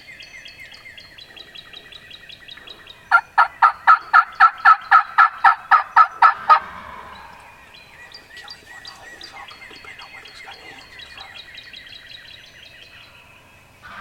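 Wild turkey yelping: a run of about thirteen loud, evenly spaced yelps at roughly four a second, starting about three seconds in and lasting about three and a half seconds. Softer, rapid bird calls go on underneath before and after.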